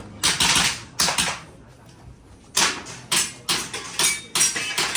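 Airsoft gas blowback pistol firing a string of about a dozen sharp shots in quick bursts, with a pause of about a second before the last run.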